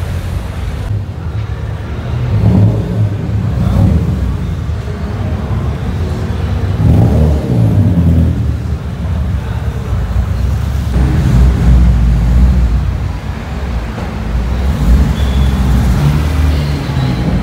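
Car engines rumbling as cars drive slowly past in a concrete parking garage, swelling several times as they pass or are given light revs.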